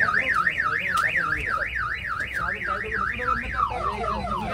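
Car alarm siren warbling rapidly up and down, about three and a half sweeps a second. Near the end it switches to a faster series of falling chirps, the next tone in the alarm's cycle.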